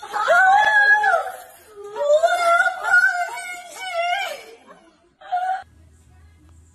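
A high-pitched voice in long, wavering drawn-out calls: one in the first second, a longer one from about two seconds in, and a short one near the end.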